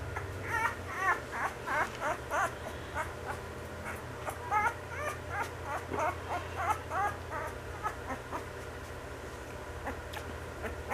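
Sheepadoodle puppy whimpering in a quick run of short, high-pitched squeaks, in two bouts that die away after about seven seconds.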